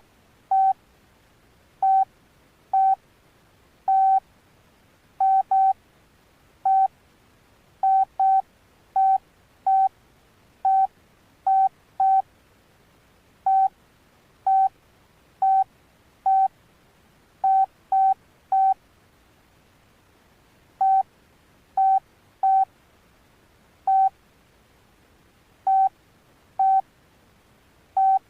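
Alcatel OneTouch Retro flip phone keypad beeping as its buttons are pressed: about thirty short beeps, all on the same pitch, at an uneven pace of one or two a second with a brief pause midway.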